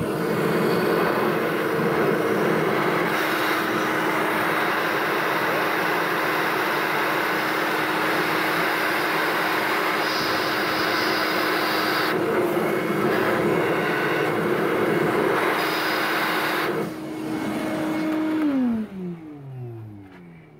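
Wet/dry shop vacuum running as a blower, its hose pushing air through the car's EGR port: a steady motor whine over rushing air. Near the end it is switched off and the motor's pitch falls as it winds down.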